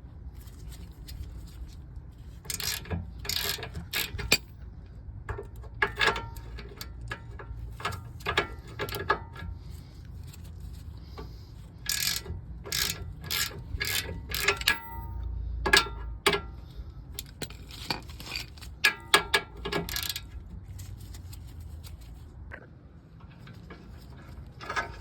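Hand ratchet with a 17 mm socket clicking in several bursts of rapid clicks as a bolt is worked loose.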